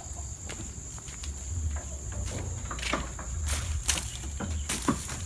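Leafy plant stems rustling and cracking as they are handled and pulled by hand, with several sharp cracks between about three and five seconds in, over a low rumble of handling noise. A steady high insect trill runs underneath.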